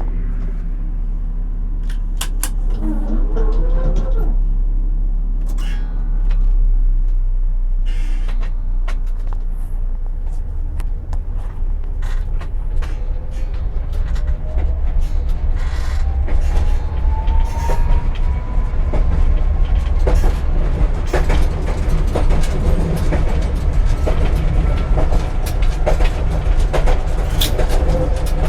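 Tram running on rails, its wheels knocking repeatedly over rail joints above a steady low rumble. A whine rises slowly in pitch from about twelve to twenty seconds in.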